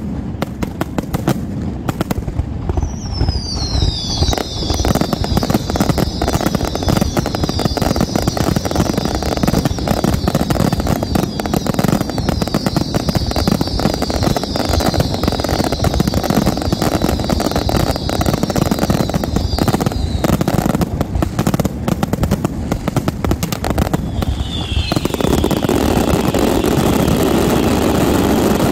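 Fireworks finale: a rapid, continuous barrage of shells bursting and crackling, with high falling whistles over it for much of the time. Near the end the bangs thin out into a steady noisy rumble.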